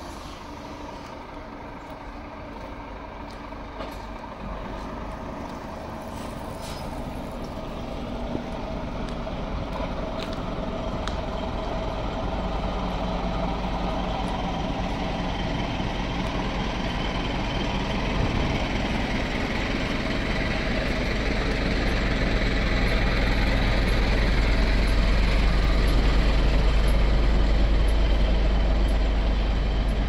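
Delivery lorry's diesel engine running with a steady low rumble, growing louder as the lorry is approached and passed close by.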